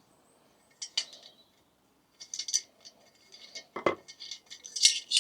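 Metal clinks and rattles of a screwdriver and small metal parts as a diesel heater is worked on by hand: a few sharp taps, a quick run of clinks, one duller knock just before the four-second mark, and more clinking near the end.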